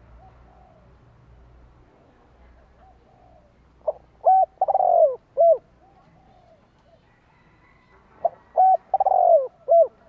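Spotted dove cooing: two phrases, each a quick run of short coos around one longer falling coo, about four seconds apart, with a few faint coos before them. It is the call of a decoy dove, used to draw wild spotted doves in.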